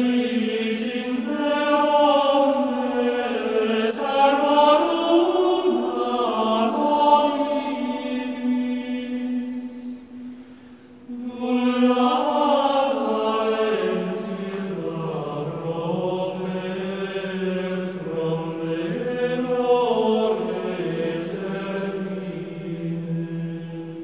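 Unaccompanied chant, sung in long held notes that move slowly in pitch, with a short break about ten seconds in.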